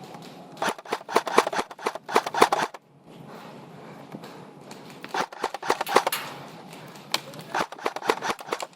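Airsoft guns firing three bursts of rapid shots: a long one of about two seconds, then two shorter ones.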